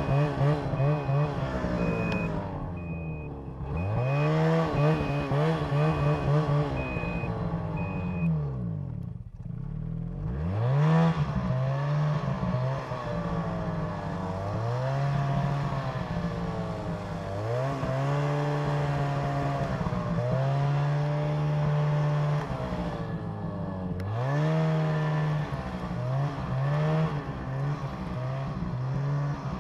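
Ski-Doo snowmobile engine revving up and down again and again as the throttle is worked, dropping off briefly about three and nine seconds in. A high electronic beep repeats steadily for the first eight seconds or so.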